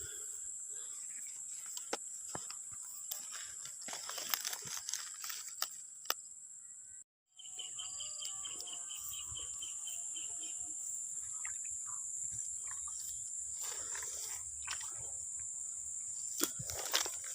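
Steady high-pitched insect drone with scattered light clicks and knocks; the sound cuts out briefly about seven seconds in, followed by a short run of rapid chirping pulses.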